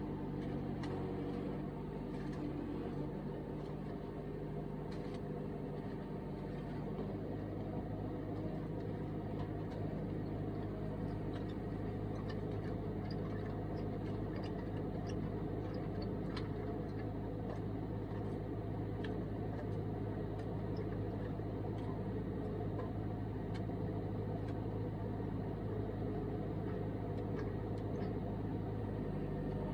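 Bobcat engine running steadily while it drives a post-hole auger through rocky ground, with scattered light clicks over the engine sound.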